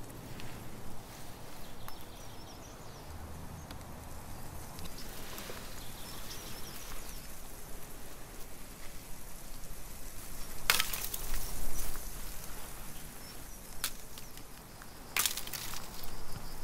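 Dry sticks and branches knocking and snapping on a forest floor over steady outdoor background noise, with a few sharp cracks in the second half.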